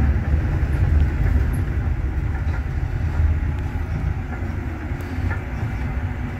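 Mercedes-Benz O500U city bus running under way, heard from inside the cabin: the OM936LA inline-six diesel and Voith automatic drivetrain give a steady low rumble, easing slightly near the end.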